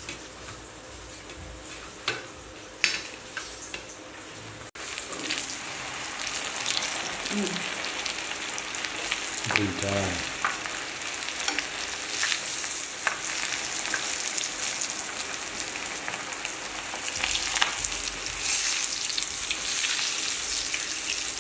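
Chicken pieces deep-frying in a wok of hot oil: a steady sizzling hiss that starts suddenly about five seconds in. Before that, quieter handling of flour-coated chicken with a couple of sharp clicks.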